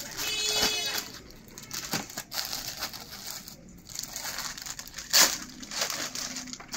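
Clear plastic garment packets crinkling and rustling as they are handled and a kurti is pulled from its packet, in irregular bursts with the loudest rustle about five seconds in.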